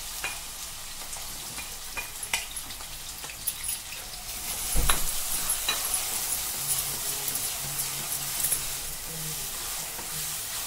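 Chopped onions sizzling as they fry in hot oil in a steel pressure cooker, stirred with a wooden spatula that scrapes and knocks against the pot a few times, loudest about five seconds in.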